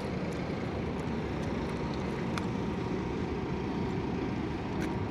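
Steady low rumble of a large car ferry's engines as it comes in to dock, with a couple of faint clicks.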